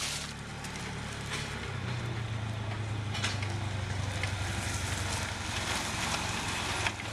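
Engine of a Ranger utility vehicle running close by, its steady hum stepping up in pitch and loudness about two seconds in and then holding.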